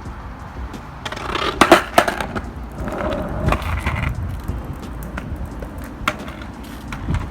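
Skateboard rolling, its wheels giving a steady low rumble, with several sharp clacks, the loudest about a second and a half to two seconds in and another near the end.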